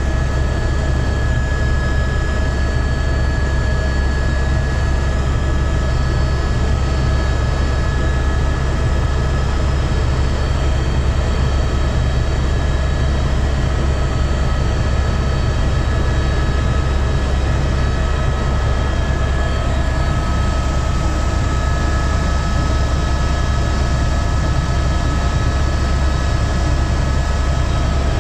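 Helicopter cabin noise in steady cruise: a deep, constant rotor and engine drone with steady high whining tones over it.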